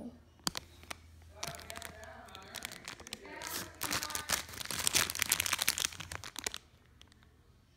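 Plastic packaging of a squishy toy crinkling as it is handled, in a run of quick crackles that is loudest through the middle and stops about a second before the end.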